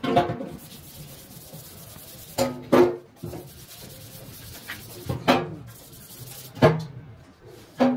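Irregular short rubbing or scraping strokes, about six in eight seconds, some with a brief ringing tone.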